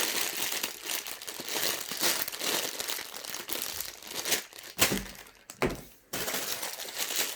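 Plastic Lego parts bags crinkling as they are handled and lifted out of the box, with a soft thud about two-thirds through as a bag is set down.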